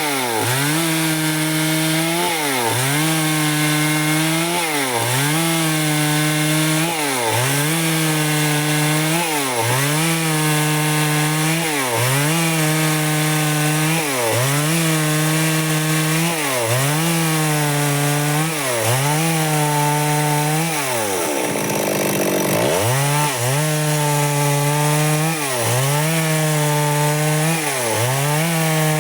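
Stihl chainsaw running at high revs while cutting boards. Its pitch dips and recovers about every two seconds as it loads in the cut, with one deeper dip about two-thirds of the way through.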